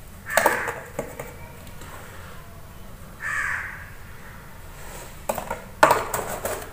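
A crow cawing a few times, hoarse calls a couple of seconds apart. Sharp clicks and knocks from handling kitchenware come between them, the loudest knock about six seconds in.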